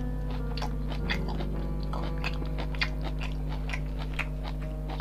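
Close-up chewing and mouth sounds of a person eating pork and mustard leaf with rice: irregular wet clicks and smacks about twice a second. A steady low hum runs underneath.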